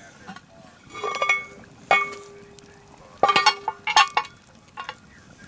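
Hard objects clinking and clanking together, about five separate strikes, one of them ringing on for about two seconds.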